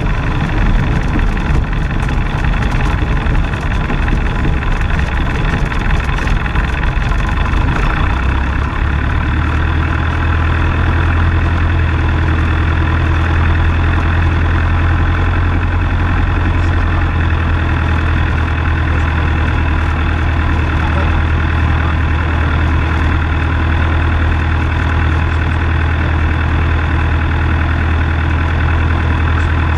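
Taylorcraft BC-12D's engine and propeller idling as the plane taxis, heard from the cabin. The uneven sound of the first several seconds settles about nine seconds in into a steady low idle hum.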